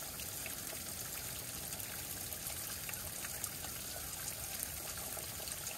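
Spring water trickling and dripping off a rock ledge into a plastic bottle held beneath it: a steady trickle with scattered small drip ticks.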